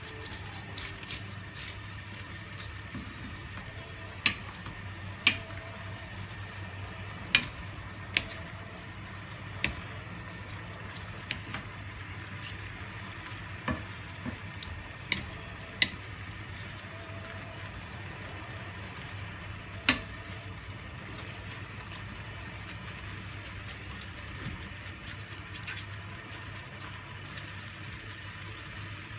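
Wooden spatula stirring sotanghon glass noodles in a pan of bubbling broth: a steady simmering hiss, with irregular sharp knocks where the spatula strikes the metal pan, the loudest about four, five, seven and twenty seconds in.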